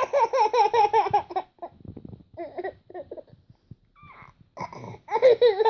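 Seven-month-old baby boy laughing in bursts of quick, high-pitched giggles: a long run at the start, a few short ones in the middle, and another run near the end.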